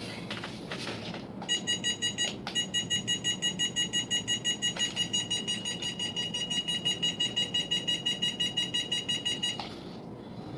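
Electronic beeper sounding rapid high-pitched beeps, about five a second, starting about a second and a half in and stopping near the end.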